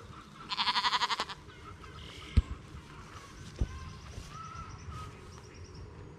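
A Polypay lamb gives one loud, wavering bleat about half a second in. A sharp knock follows a little after two seconds, then a duller thump about a second later.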